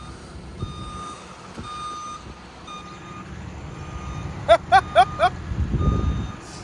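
A reversing alarm beeping steadily, about once a second, from a loader working in the yard. A little past the middle come four quick, loud rising chirps, and a low rumble follows near the end.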